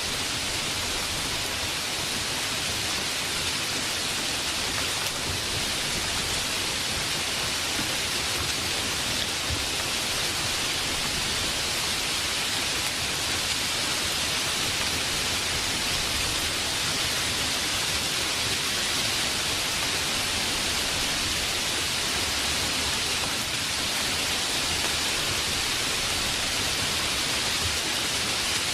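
Steady heavy rain: an even, unbroken hiss with no thunder claps.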